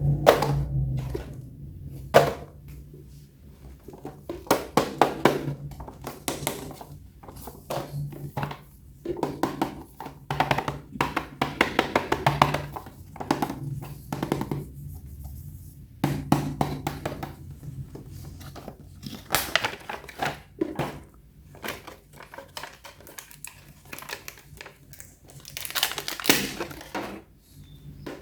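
Plastic toys and packaging being handled: irregular clicks, knocks and crinkling rustles, in clusters with short pauses between.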